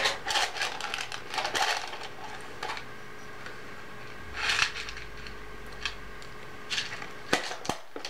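Light clicks, taps and rattles of small hard objects being handled, with a short rattle of mints in a small tin about four and a half seconds in and a few sharp clicks near the end.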